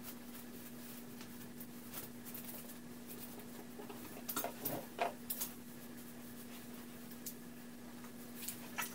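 Faint rustling of fingers working through long hair over a steady low hum, with a few slightly louder rustles about halfway through.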